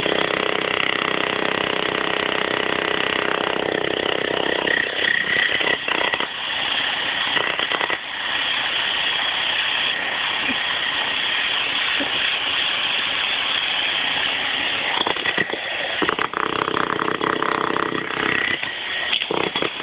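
Jackhammer breaking up concrete, a loud continuous rapid hammering with a couple of brief pauses.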